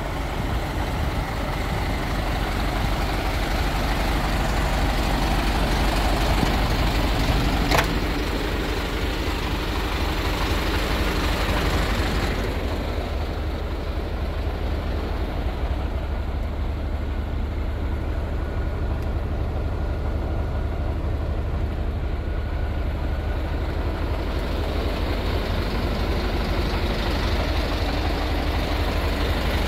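The Volvo F16 470's 16-litre straight-six diesel idling steadily, with one sharp click about eight seconds in. From about twelve seconds in it is heard from inside the cab, duller and with less hiss.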